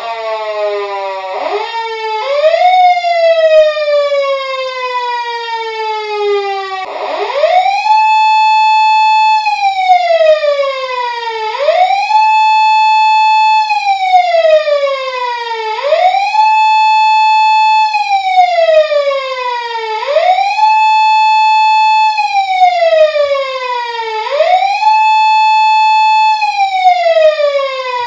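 Japanese police car siren wailing: each cycle rises quickly, holds a steady tone for about a second and a half, then falls slowly, repeating about every four seconds. Before the regular cycle sets in, there are two short rises and one long slow fall.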